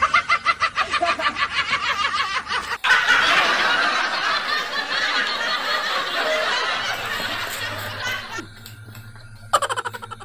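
Laughter: a quick run of 'ha-ha' pulses for nearly three seconds, then a loud, even rushing noise for about five seconds, and another short burst of laughter near the end.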